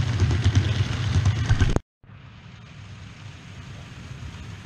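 OO gauge model train running along the track, heard from a camera riding on it: a loud low rumble with many quick clicks from the wheels and rails. It cuts off abruptly about two seconds in, and a much quieter, steady running sound follows.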